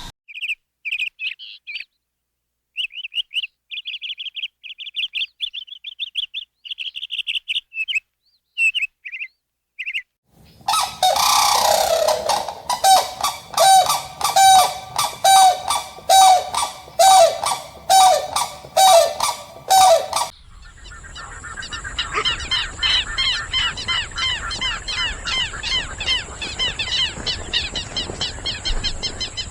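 Farm birds calling in three separate takes. First come short runs of high chirps, then loud honking calls about once a second, then the dense, overlapping chatter of a flock over a steady high whine.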